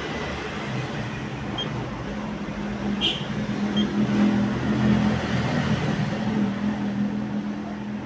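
Canon photocopier running through a copy cycle: a steady mechanical hum that grows louder about two seconds in, with a sharp click about three seconds in.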